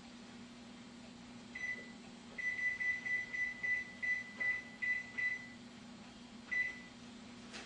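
Electronic oven control panel beeping as its keys are pressed to set a 400-degree preheat: a single beep, then a quick run of about ten short beeps, then one last beep near the end.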